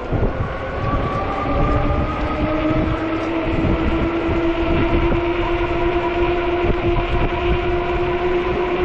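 Whine of a 48-volt fat-tire e-bike's motor while riding, a steady tone that slowly rises a little in pitch, over the rumble of wind buffeting the microphone.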